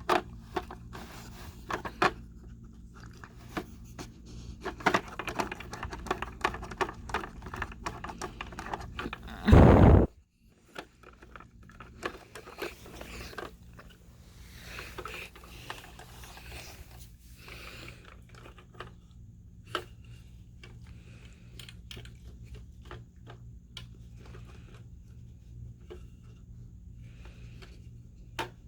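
Dog nosing and pawing at a treat puzzle box, its compartments scraping and clicking, with crunching as it eats the treats it has uncovered. A loud thump about nine and a half seconds in.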